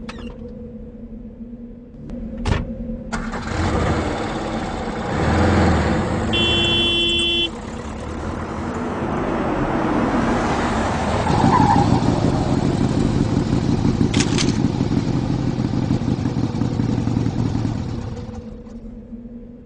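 Motor vehicle running in road traffic: engine rumble and road noise, with a brief steady tone about six seconds in and a few sharp clicks.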